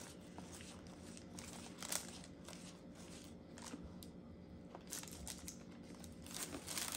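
Faint crinkling and rustling of paper food wrappers as fingers handle them, with a few sharper crackles about two seconds in and near the end.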